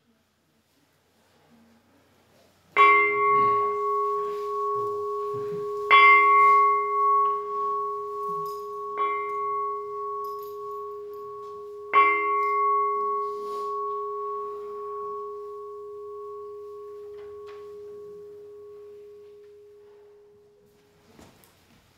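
A bowl-shaped temple bell struck four times, about three seconds apart, the third strike softer. Each strike gives one clear low tone with a higher ring above it, and the ringing dies away slowly over about nine seconds after the last strike.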